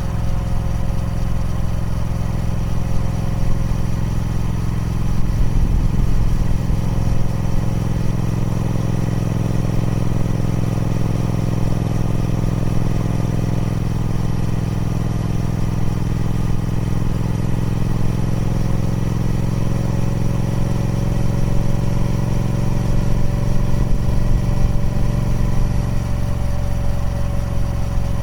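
Triumph Speed Twin 1200's parallel-twin engine idling steadily through its stock exhaust, with a slight rise in engine speed about twenty seconds in.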